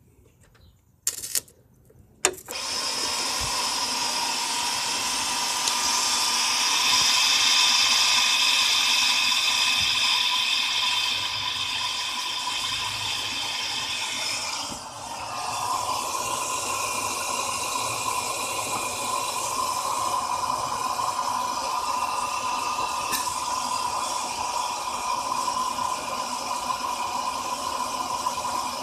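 A few sharp crackles as the battery cable makes contact, then an electric motor in a 2006 Hummer H3 starts up by itself and runs with a steady whirring whine. The pitch changes about 15 seconds in. This is an unexplained fault that appears as soon as the battery is connected.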